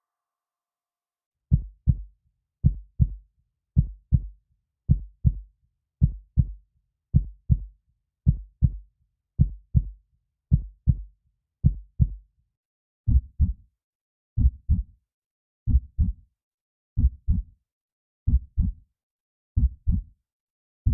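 Heartbeat sound effect: a steady lub-dub double thump, about one beat a second, starting about a second and a half in. A little past halfway the beats come slightly further apart and sound fuller.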